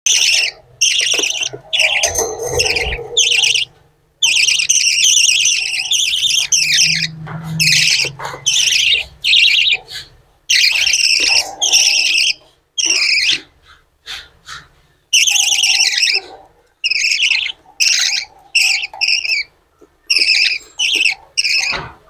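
Young budgerigars chirping in harsh, rapid bursts of a second or two at a time, with short breaks between.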